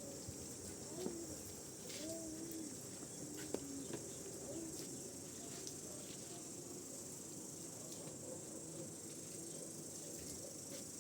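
Steady high-pitched insect chorus, crickets or similar, with a few faint low warbling calls in the first few seconds and a small click a few seconds in.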